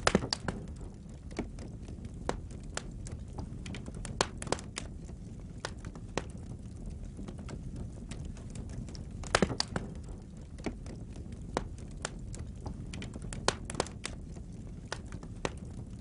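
Wood fire burning in a fireplace: irregular crackles and sharp pops from the burning logs over a steady low rumble of flames. The loudest pops come just after the start and about nine seconds in.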